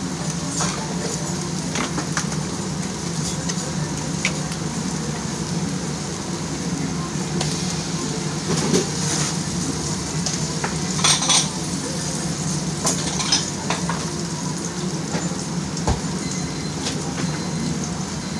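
Dishes and cutlery clinking now and then, in short clusters, over a steady low hum and a constant noisy background.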